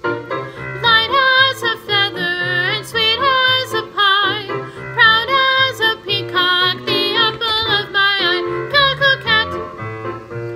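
Children's song sung by voices in a melodic line with vibrato, over a steadily moving instrumental accompaniment.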